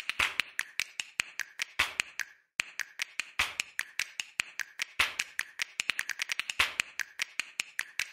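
A quick, uneven run of sharp clicks and snaps, like finger snaps or taps, with a brief pause about two seconds in.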